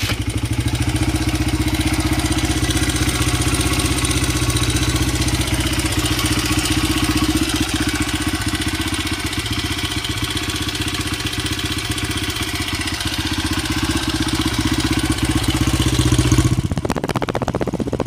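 Honda XR80R's small air-cooled four-stroke single-cylinder engine idling steadily, just after starting up. It gets briefly louder near the end, then drops off.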